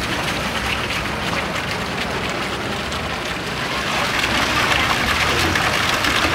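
Steady rushing, rain-like patter of water, swelling a little after about four seconds.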